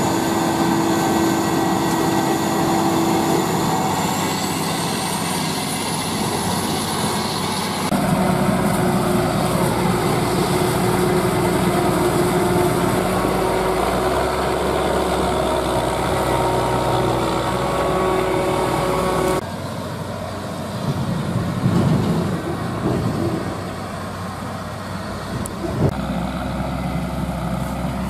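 Claas Jaguar 980 forage harvester's V12 diesel running under load as it chops standing maize, with a steady high whine that rises in pitch briefly. The sound then gives way to a tractor engine working beside it and pulling a loaded silage trailer. The machine sound changes abruptly about eight seconds in and again near twenty seconds.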